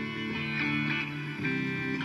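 Guitar strumming chords of a D–C–G progression, with a chord change about one and a half seconds in.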